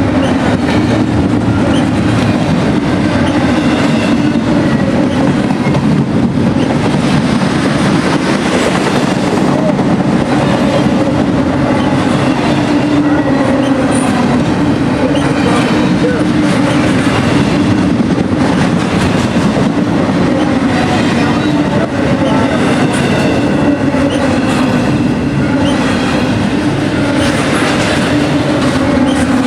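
Freight train cars rolling past: a loud, steady rumble of wheels on the rails that holds without a break.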